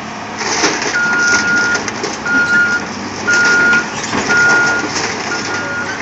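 Heavy-equipment backup alarm beeping once a second at a single steady pitch, starting about a second in, over the noise of a working excavator and the clatter of scrap metal.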